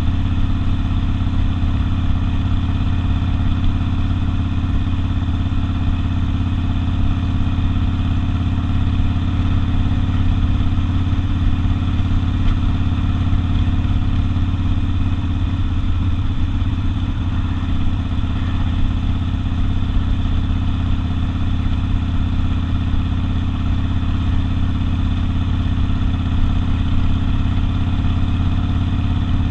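Harley-Davidson Sportster V-twin engine running through an open exhaust, holding one steady, unchanging engine speed.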